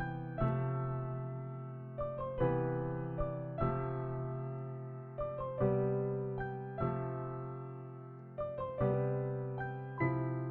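Background music: slow, gentle piano or electric piano playing held chords and single notes, each struck and fading.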